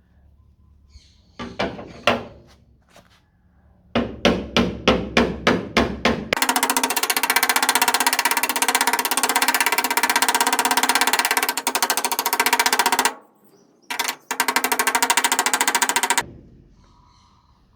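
Metal striking the steel rear quarter panel of a Mk2 Ford Escort while a dent is worked out: a couple of single knocks, then rapid hammer strikes at about four or five a second. From about six seconds in, a pneumatic air hammer runs in long bursts of very fast impacts, stopping briefly twice.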